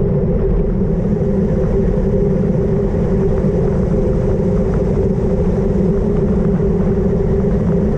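Wind rushing over a bike-mounted GoPro microphone on a fast road-bike descent: a loud, steady rumble with no breaks.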